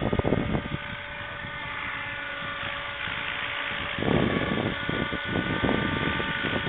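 Scale electric model helicopter hovering low, its motor and rotor blades giving a steady high whine of several tones. Gusts of wind rumble on the microphone near the start and again from about four seconds in.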